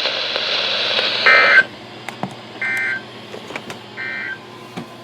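Weather radio playing the Emergency Alert System end-of-message data signal: three short, identical bursts of buzzy digital data tones about 1.3 seconds apart, marking the end of the severe thunderstorm warning. Radio hiss under the first burst cuts off about one and a half seconds in.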